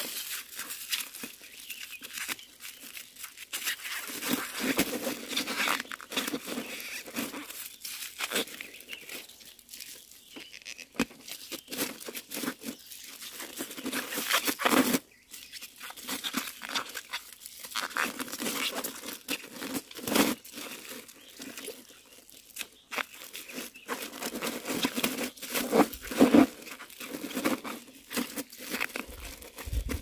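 Thin plastic bag crinkling and rustling in irregular bursts as it is pressed over the mouth of a glazed earthenware jar and tied down to seal it.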